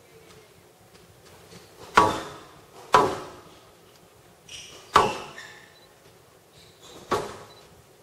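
Squash rally: four hard strikes of the ball, each ringing briefly around the glass court, with faint squeaks of shoes on the court floor between them.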